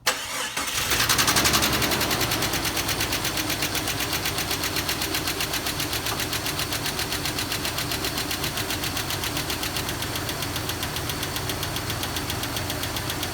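Jeep Cherokee XJ engine starting cold: it catches within the first second, flares briefly, then settles into a steady idle with a fast, even ticking knock. The tick is a cold-start lifter tick, which the owner thinks is a lifter in the back of the engine, noisy until the oil comes up.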